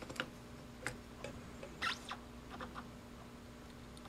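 A few faint, irregular small clicks and scrapes as a thermocouple probe is worked against a soldering iron tip by hand, the loudest about two seconds in, over a steady faint hum.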